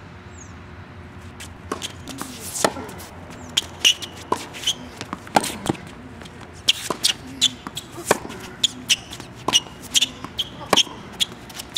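Tennis balls struck by rackets and bouncing on a hard court during a baseline rally: a run of sharp pops at uneven intervals, starting about a second and a half in.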